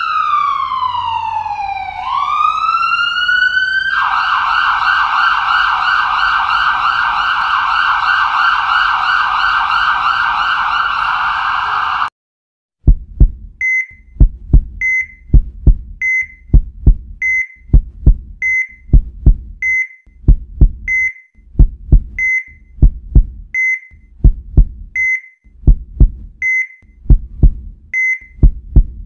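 Ambulance siren: a wail that falls and rises, then switches to a fast warble and cuts off about 12 seconds in. Then a heartbeat sound with a patient monitor: low double thumps, each with a short high beep, a little over one a second.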